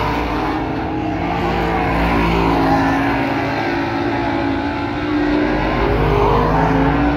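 Several superstock race cars' V8 engines racing past together, each rising and falling in pitch as they accelerate out of the bend and lift off.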